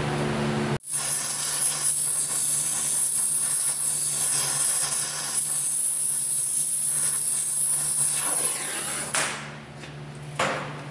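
Oxy-fuel torch flame hissing steadily as it heats the heads of exhaust manifold bolts to break their factory thread-locker loose. The hiss starts about a second in and stops near the end, followed by a single short knock.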